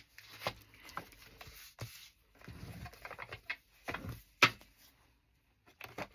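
Paper cards being handled and set down: scattered light taps and rustles, with one sharper tap about four and a half seconds in.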